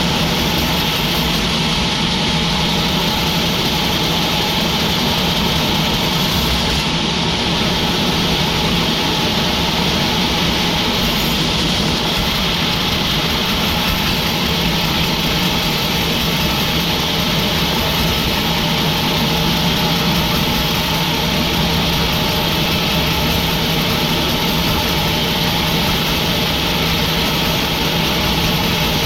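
Sawmill machinery running steadily: a constant, even engine-like drone with a steady hum that does not change.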